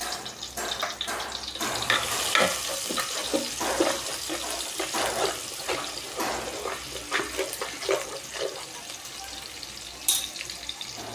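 Paste frying in hot soybean oil in a pot, a steady sizzle with the scrapes and taps of a spoon stirring it as the paste browns.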